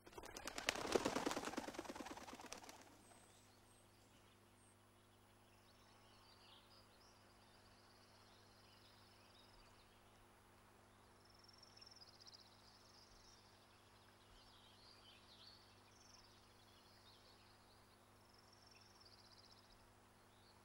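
A loud, rough sound about two seconds long at the start, fading away. Then faint birdsong, with short high chirps coming and going over a quiet outdoor background.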